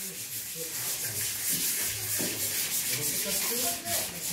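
Sandpaper rubbed by hand over a wooden cutting board: a steady, scratchy hiss of repeated back-and-forth strokes.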